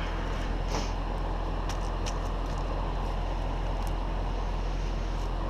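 Crane engine running steadily as a low rumble, with a few faint clicks over it.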